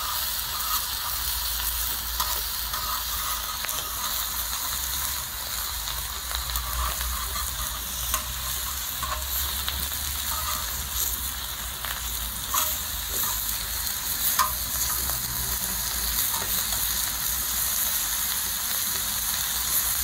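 Pork belly strips sizzling steadily in their own fat on a hot cast-iron pot lid, with scattered sharp pops and crackles.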